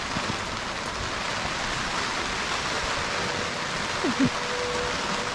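Rain falling in a steady hiss.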